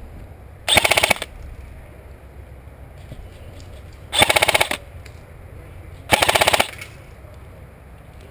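Airsoft electric gun firing three short full-auto bursts, each about half a second of rapid clicking shots. The bursts come about three seconds and then two seconds apart.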